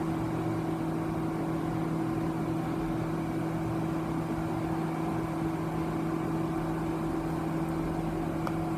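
Steady whirring hum with a low pitched tone from the cooling fan of a running Tektronix 2467B oscilloscope, with a faint click near the end.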